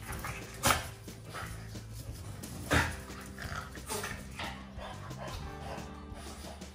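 French bulldog barking: two loud sharp barks about two seconds apart, then a softer one, over background music.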